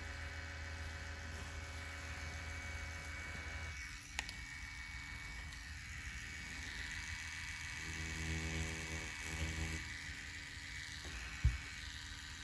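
Faint low hum of a rotary tattoo pen machine, with a sharp click about four seconds in and a short thump near the end.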